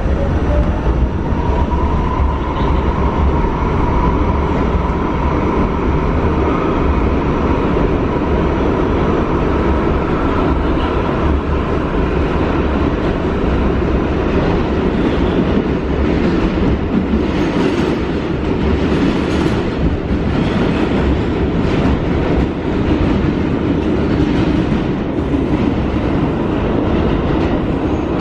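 New York City subway train heard from inside a car as it pulls out of the station: the motor whine rises in pitch over the first second or so and then holds steady over the loud running rumble of the car. The wheels clack over rail joints, several times between about 16 and 20 seconds in.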